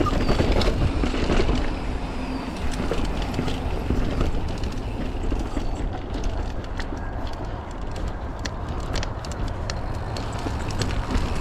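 Mountain bike rolling downhill on a dirt singletrack: tyre noise with scattered clicks and rattles from the bike over the rough ground, and heavy wind rumble on the microphone.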